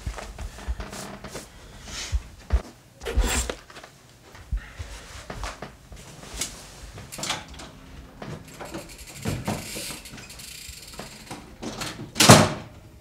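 A person scrambling out of bed and moving about a small room: bedding rustling, thumps and footsteps, with a loud bang about twelve seconds in, a door being shut.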